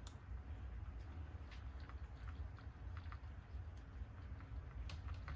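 Scattered light clicks and taps of small plastic parts and screws being handled as a shock mount is fitted to a 1/16 RC truck chassis, over a low steady hum.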